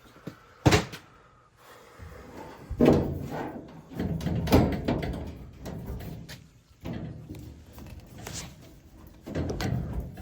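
A door or panel being handled: a sharp knock, then several bumps and rattles.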